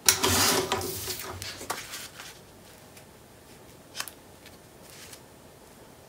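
Sheet of patterned cardstock rustling and sliding as it is laid down and pressed onto a paper album page, loudest at the start and fading out within about two seconds, then a single light tap about four seconds in.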